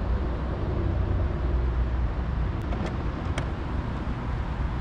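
Audi e-tron GT trunk lid unlatching and lifting open, with a few sharp clicks from the latch and lid mechanism about halfway through, over a steady low rumble.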